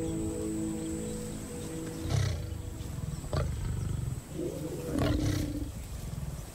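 Lion vocalizing: three low, rough growls about two, three and five seconds in, over steady background score music.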